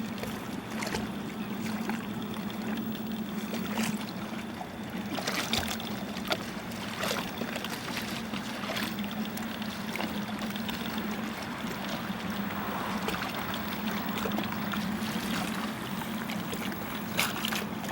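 Steady rushing water noise, with a constant low hum beneath it and scattered light clicks throughout.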